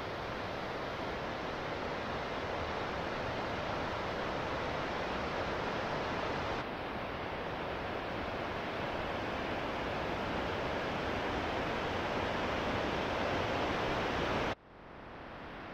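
Steady rushing of a rain-swollen mountain stream's cascades. The sound shifts slightly about six and a half seconds in, then drops off abruptly near the end and returns quieter.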